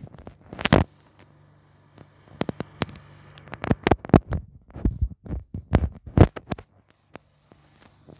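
Irregular knocks, scrapes and rustles close to the microphone, handling noise over a steady low hum, dying away near the end.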